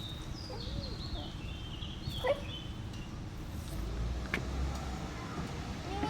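Birds chirping: short high twitters and gliding notes, over a steady low rumble.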